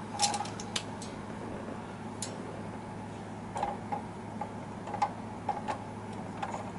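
Light, irregular clicks of the metal needles on a Silver Reed SK160 knitting machine's needle bed as hands hang marker yarn on them, coming in small clusters over a steady low hum.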